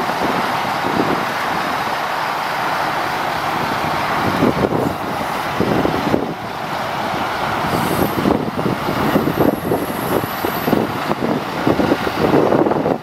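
The crane truck's Caterpillar 3126 straight-six diesel running steadily and driving the hydraulics of the National articulating crane as the boom folds down, with gusty wind on the microphone. A thin high whistle comes in for about two seconds past the middle.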